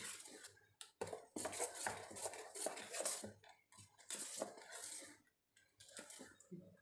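Metal spoon stirring thick rice-flour batter in a stainless steel bowl, scraping and clinking against the metal in repeated strokes, with a brief pause about five seconds in.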